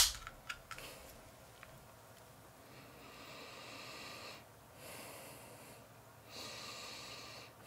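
A sharp crack from an aluminium soda can's pull-tab at the very start, then three long sniffs through the nose at the open can, each about a second long, smelling the soda.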